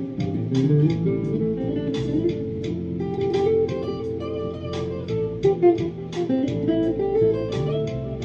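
Squier junior-size Stratocaster-style electric guitar played solo: single notes and chord fragments picked in a steady flow, several attacks a second, with notes left ringing.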